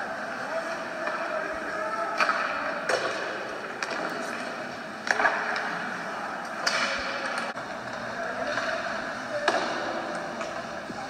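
Ice hockey game in play: skates scraping the ice and sticks and puck clacking, with several sharp knocks spread through, over a faint murmur of voices in the rink.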